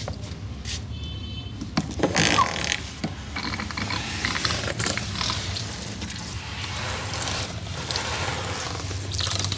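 A hair wash: water splashing and running over the head while hands rub the wet hair and scalp, loudest about two seconds in. A steady low hum runs underneath.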